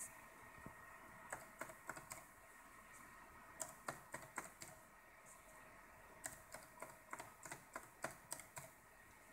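Laptop keyboard keys tapped in three short runs of clicks, a handful of keystrokes each, as digits and Enter are keyed in on the numeric keypad. A faint steady hum lies underneath.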